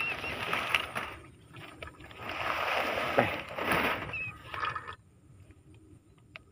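Rustling and light clattering as a woven plastic basket full of wire-mesh cage rat traps is moved and handled, in two stretches that die away about five seconds in.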